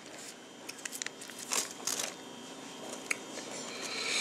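Paper taco wrapper and a hot sauce packet crinkling as they are handled: a few short, faint crackles, then denser crinkling near the end.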